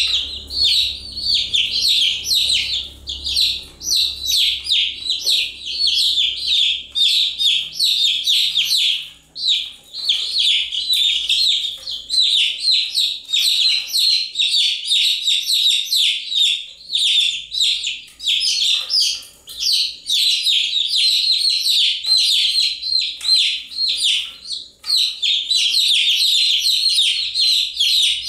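Baby chicks peeping continuously: many short, high, falling chirps overlap several times a second, from more than one chick at once.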